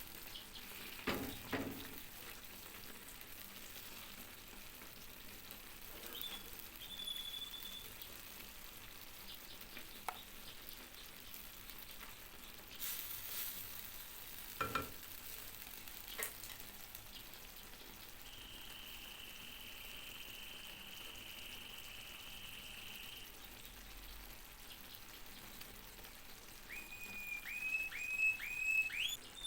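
Food frying with a low, steady sizzle, stirred now and then with a few sharp utensil clicks. A high electronic-sounding tone holds for about five seconds past the middle, and a quick run of four rising chirps comes near the end.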